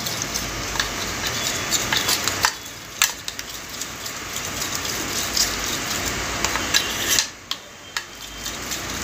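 Metal spoon stirring a thick batter of gram flour and ghee in a steel bowl, scraping and clinking against the bowl's sides, briefly quieter twice.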